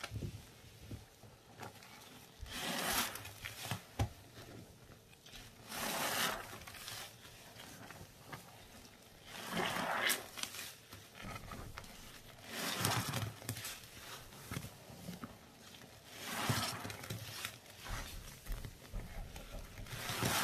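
Thick, foamy wet paste being squished and squeezed by a gloved hand: bubbly squelching and crackling that swells every three to four seconds as the hand presses into the paste and squeezes a handful.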